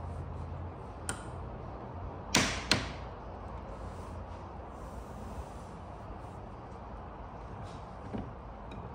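Hand-cranked wire cut-out tool, suction-mounted on the glass, being wound so its cutting wire saws through the glass adhesive: scattered clicks, with two sharp swishing snaps about two and a half seconds in.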